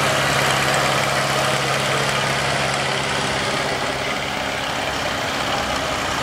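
Several vintage Ferguson and Massey Ferguson tractor engines running at low speed close by as the tractors move past, a steady low engine hum.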